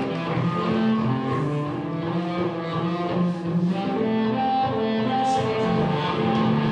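Slow instrumental music of sustained, held notes that change pitch every second or so.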